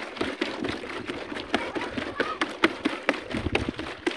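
Irregular taps and knocks of footsteps on a floating walkway made of plastic cubes, several a second.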